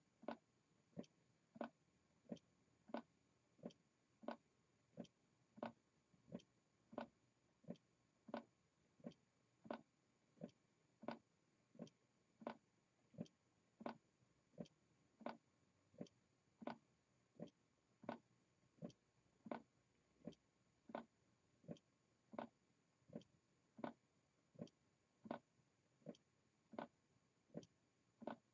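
Faint, even ticking from a handmade low-temperature-difference Stirling engine running on the heat of a hand, about three ticks every two seconds.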